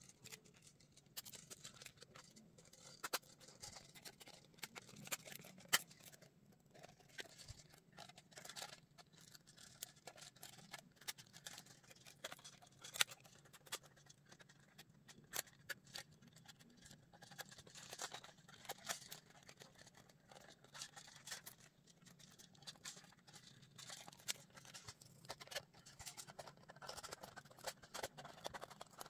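Faint, irregular clicks and taps of small clear plastic pieces being handled and fitted together by hand, over a faint low hum.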